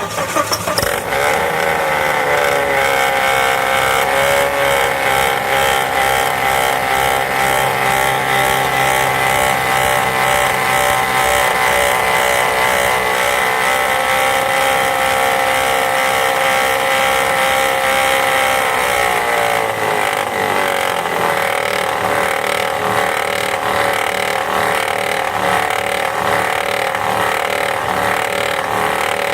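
2005 Volvo V70 engine running with a steady noise from its alternator's one-way clutch pulley, which wobbles side to side, and from worn alternator bearings. The noise comes in abruptly and holds steady in pitch, then drops lower about twenty seconds in.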